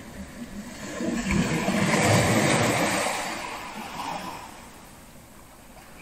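One ocean wave breaking and washing up the beach: the surf noise builds about a second in, is loudest around two seconds, and dies away by about five seconds.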